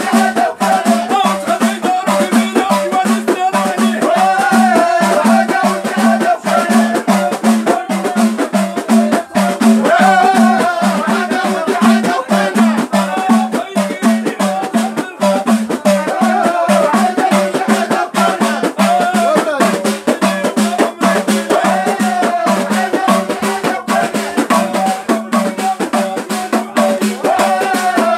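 Moroccan Abidat Rma folk music: a chorus of men chanting together over a dense, steady beat of hand drums and rattling percussion.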